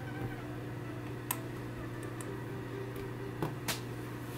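A few light clicks from a clamshell handheld PC's hinged lid being snapped shut: one about a second in, then two close together past three seconds, over a steady background hum.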